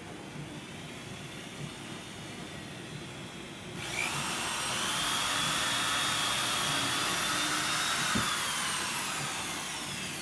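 Power drill spinning up about four seconds in, running at a steady high whine for about four seconds while drilling a pilot hole for a hinge screw, then winding down near the end.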